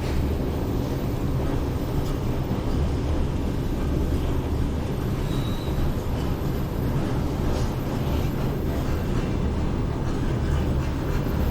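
City train running on the line, a steady low rumble heard from high above the tracks.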